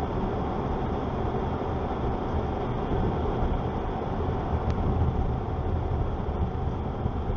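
A car driving along a paved road, heard from inside the cabin: a steady low rumble of tyres and engine.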